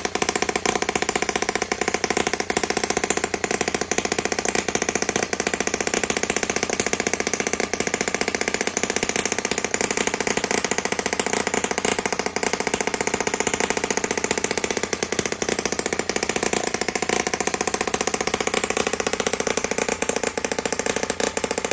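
Small single-cylinder model internal combustion engine running steadily, with a rapid, even firing beat.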